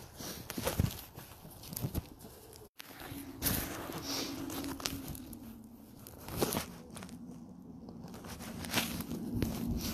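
Footsteps crunching irregularly over thin snow and frozen grass, with phone handling noise. From about three seconds in, after a brief dropout, a steady low hum runs underneath.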